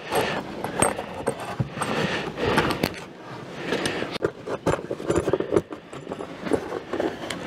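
Handling noise from fitting a polystyrene foam insulating panel onto a wooden beehive top: scraping and rubbing with many small jangling clicks, busiest in the first few seconds.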